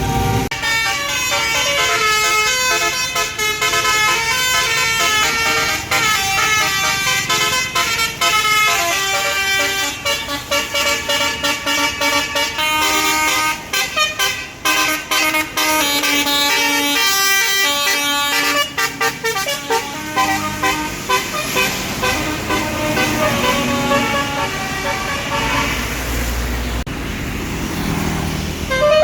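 Bus basuri telolet horn playing a tune: a run of held horn notes stepping up and down in pitch. A low rumble comes in near the end.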